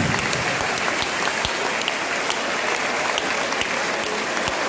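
Football stadium crowd applauding, many hands clapping steadily from the stands.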